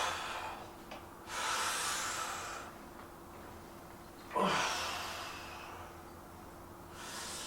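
A man breathing hard with effort while lifting weights: four forceful breaths, a long hissing exhale after the first, and a sharp one about halfway through that opens with a short grunt.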